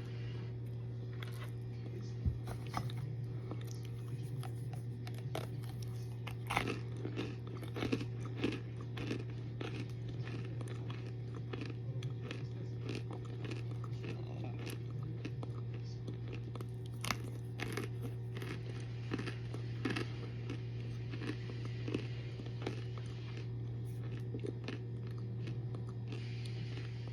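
Hard baked cornstarch being bitten and chewed, with irregular crisp crunches, over a steady low hum.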